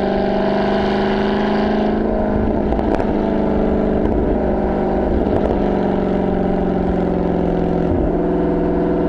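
Dodge Charger Hellcat's supercharged 6.2-litre Hemi V8 through a Corsa Xtreme exhaust, heard right at the tailpipe while cruising at a steady engine speed. About two seconds in the throttle eases off and the note goes uneven for a few seconds, with a sharp crack near three seconds; it settles back to a steady drone.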